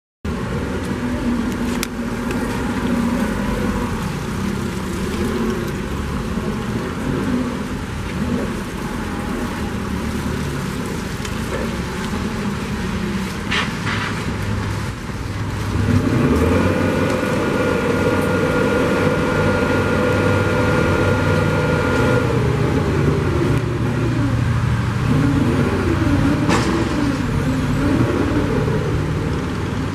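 LPG engine of a Cat GP35N forklift running as the truck moves about, then revving harder with a steady whine from the hydraulics for several seconds past the middle while the three-stage mast goes up. Near the end the engine pitch rises and falls a few times.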